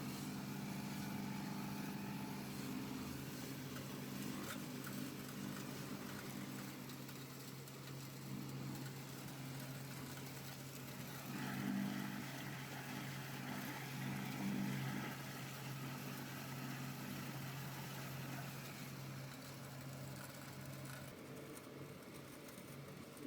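Electric soybean grinding mill running steadily, its upper and lower grinding wheels milling soybeans into soy slurry, with a steady hum. It swells twice about halfway through.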